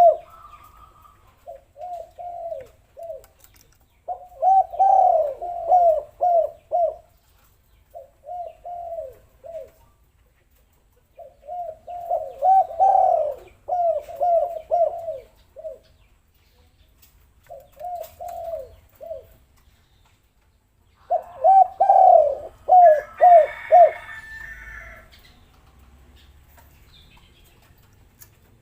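Spotted dove cooing: seven phrases of several quick coo notes each, separated by pauses of one to two seconds. Briefly, about 23 seconds in, a higher twittering chirp overlaps the cooing.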